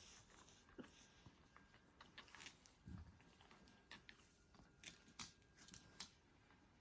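Near silence with faint, scattered small clicks and ticks and a soft thump about three seconds in.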